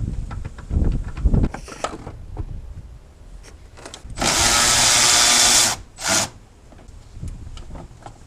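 Handheld power tool runs in one burst of about a second and a half, then a short second burst. Low clunks of tool handling come before it.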